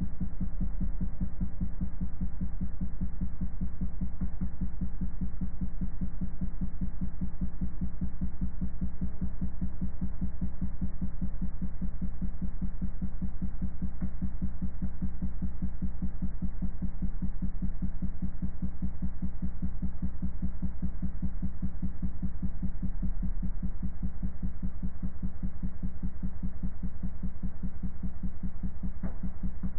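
A steady low-pitched tone from a loudspeaker vibrating a water droplet at one of its resonant frequencies, humming with a rapid, even throb.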